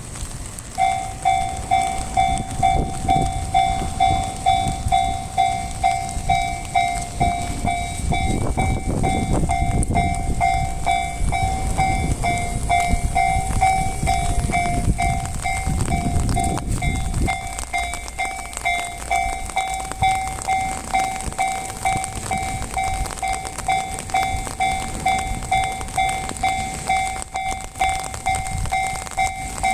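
A Japanese level crossing's warning bell starts about a second in and rings on steadily, a little under two dings a second. Between about 7 and 17 seconds a train rumbles past over the crossing.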